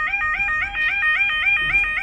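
UK level crossing yodel alarm sounding, a loud electronic warble of a quick rising tone repeated about four times a second: the warning given while the crossing barriers are moving. Low wind rumble sits beneath it.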